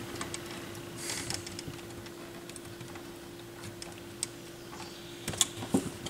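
Small clicks and rustles of wires being handled inside an open turntable chassis, over a steady faint hum, with a few sharper clicks near the end.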